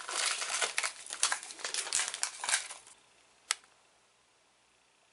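Paper and plastic snack packaging crinkling and rustling as it is handled, for about three seconds, then one sharp click.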